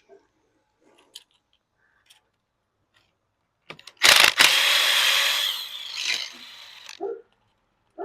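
Cordless screw gun running for about three seconds, backing a long mounting-bracket screw out of the junction box. It stutters briefly as it starts, then runs steadily and eases off before stopping. Faint small clicks come before it.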